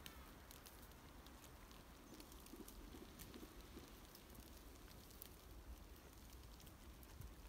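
Faint scattered crackles and ticks over a low wind rumble, from a flock of sheep grazing close by, tearing at grass and heather.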